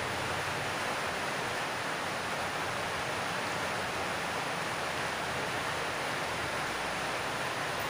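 Heavy rain falling on a corrugated metal roof, a steady, unbroken rush of noise.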